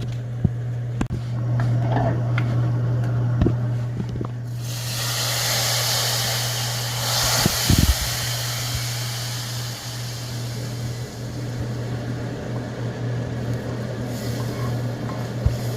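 Cooking on a stove: a steady low hum throughout, a few sharp clinks of a utensil against the pot, and a hiss that starts suddenly about four seconds in and fades after several seconds.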